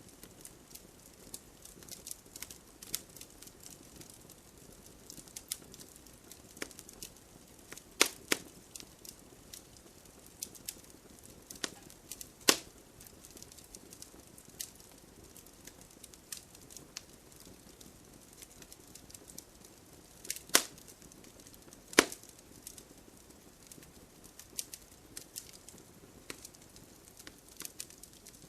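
Wood fire burning in a fireplace, crackling with a constant scatter of small clicks and four louder pops spread through it.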